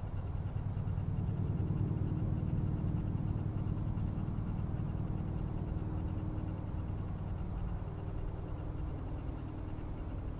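A steady low rumble by the river, with a small bird giving a quick series of thin, high notes that fall slightly in pitch about halfway through.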